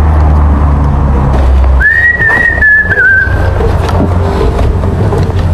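A single high whistled note, held about two seconds with a slight waver and dipping at the end, over a loud low rumble.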